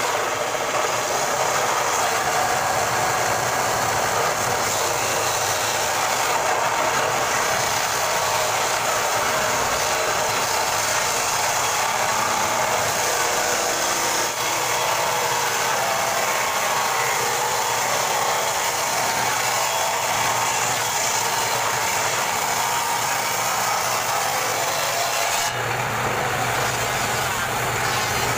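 Circular saw blade ripping a thick hardwood slab lengthwise, a steady, loud cutting noise. Near the end the cut finishes and the saw runs on free with a lower, steady hum.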